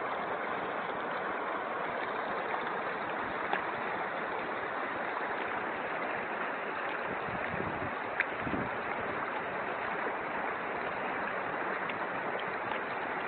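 Steady rushing of a fast, muddy river in flood, an even wash of moving floodwater, with two faint clicks about a third and two-thirds of the way through.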